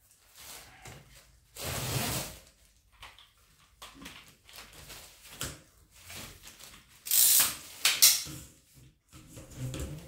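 Handling noises as the Parkside PWD 30 B1 wet and dry vacuum's metal extension tube and floor nozzle are fitted to the hose handle, with the vacuum motor not running. A few short noises, the loudest about seven to eight seconds in.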